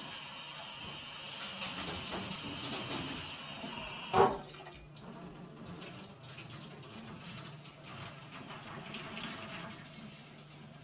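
Water running from a kitchen tap into a stainless steel sink as a glass is rinsed under it, with a sharp knock about four seconds in and a few small clinks after it.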